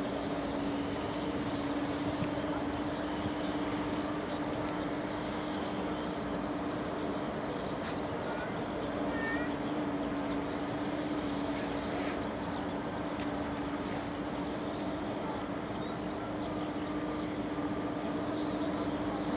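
Steady airport background roar with a constant low hum, unchanged throughout, and a few faint bird chirps about nine seconds in.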